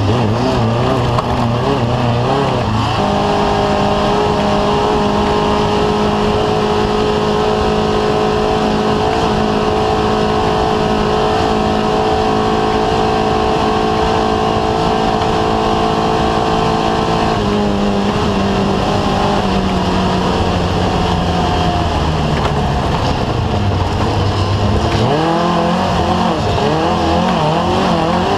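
Off-road race vehicle's engine under hard throttle over a loose, rough surface. The revs bounce up and down for the first few seconds, then hold high and steady for about fourteen seconds, ease down gradually, and bounce again near the end.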